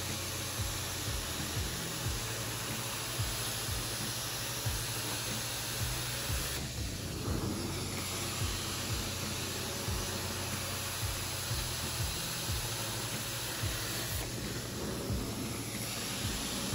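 Hot-water-extraction carpet-cleaning wand drawn over carpet: a steady hiss of vacuum suction pulling air and water through the wand head. The high part of the hiss dulls briefly twice.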